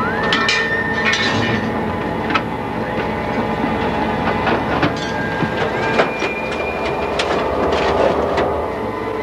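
Scrap-yard clatter: repeated clanks and knocks of metal over steady machinery noise, with a machine whine that rises in pitch near the start and again about six seconds in, holding each new pitch.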